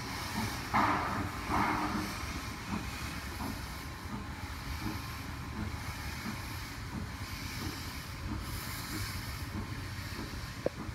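Steam locomotive working slowly with its cylinder cocks open: hissing blasts of steam in a slow, roughly even rhythm over a low rumble. Two stronger blasts about a second in, and a sharp click near the end.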